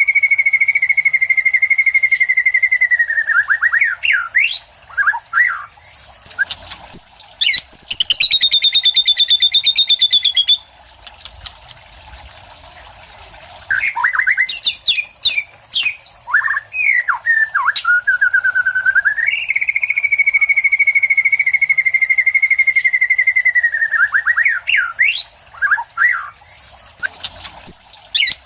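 White-rumped shama (murai batu) singing loud, fast rattling trills held on one pitch, once at the start and again about two-thirds through. Between the trills come short varied phrases of its mimicked song material, a higher falling trill, and a pause of a few seconds in the middle.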